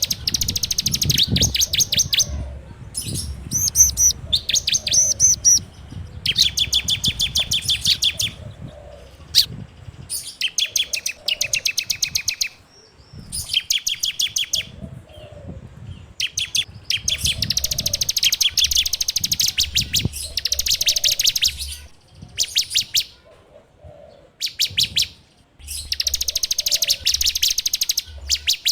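Ciblek (prinia) singing: rapid, buzzing trills of fast repeated notes in bursts of one to two seconds, separated by short pauses.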